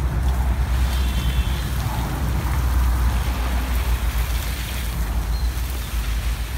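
Wind buffeting the microphone: a continuous low rumble with a rushing hiss over it.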